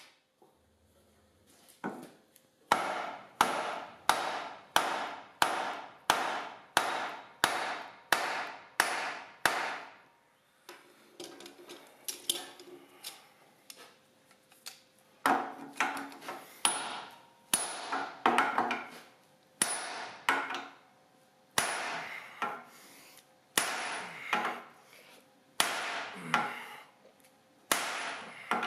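Heavy hammer striking a red-hot rivet in a steel beam, forming its domed head. About 1.4 evenly spaced blows a second for several seconds, then a short lull with quieter scraping, then more blows, often in quick pairs, some with a brief high ring.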